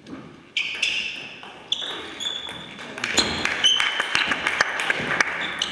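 Table tennis rally: the celluloid ball clicking off the bats and the table in quick succession, the hits coming thick from about halfway through. Short high squeaks of the players' shoes on the hall floor come in between.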